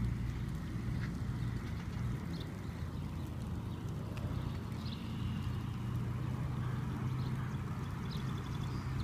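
Jeep Wrangler's engine running steadily at low speed, a low hum, with a few short bird chirps here and there.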